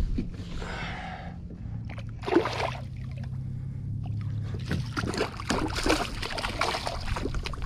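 Water splashing as a hooked fish thrashes at the surface beside a kayak, a rapid irregular run of splashes beginning about five seconds in. A single short knock comes a couple of seconds in.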